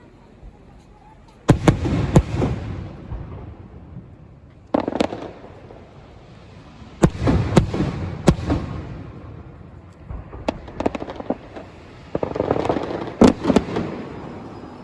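Aerial fireworks shells bursting in groups of sharp booms, each trailed by a rumbling echo: a pair about a second and a half in, one near five seconds, three in quick succession around seven to eight seconds, and a denser volley near the end.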